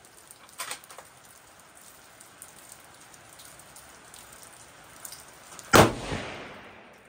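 A single shot from a Seekins Havak PH2 bolt-action rifle in 6.5 Creedmoor, near the end: a sharp crack whose echo trails off over about a second. A couple of faint clicks come before it, just under a second in.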